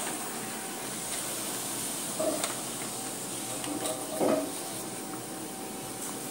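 Canon LBP6000/6030 laser printer running a print job, feeding a sheet with its newly fitted pick-up roller and ejecting it: a steady whir and hiss, with short clicks and paper rustles about two seconds in and again about four seconds in.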